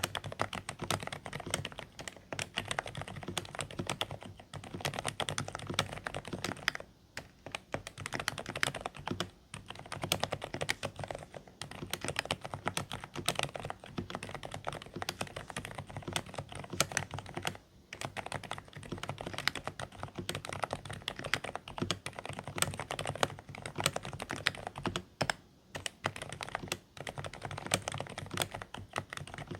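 Steady fast typing on a Dareu A104 Pro mechanical keyboard with silent beige switches: quiet, muffled keystrokes, broken by a few short pauses.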